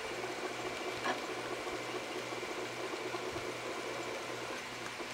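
Stepper motors of a half-scale Printrbot Simple 3D printer humming as it prints a small gear, a low hum that stops and starts in short repeated moves. A faint tick about a second in.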